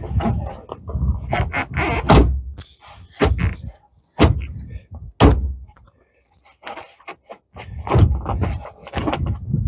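Knocks, clunks and clicks of a side-by-side's aftermarket framed upper door being worked and adjusted in its frame, with sharp hard strikes about 2, 4 and 5 seconds in.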